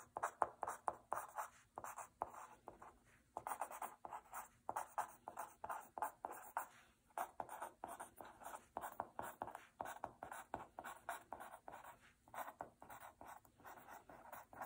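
Felt-tip pen writing on a sheet of paper: a run of quick, short scratchy strokes, with brief pauses between words.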